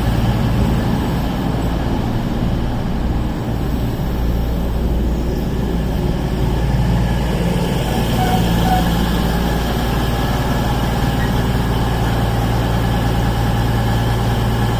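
Class 220 Voyager diesel multiple unit standing with its underfloor diesel engines idling, a steady low engine note that does not change.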